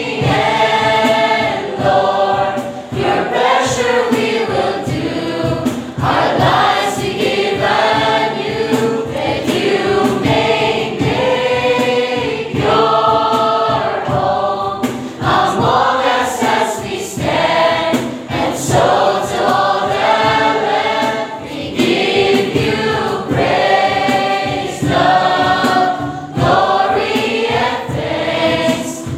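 A congregation singing a praise and worship song together, many voices in unison, with low regular pulses beneath the voices.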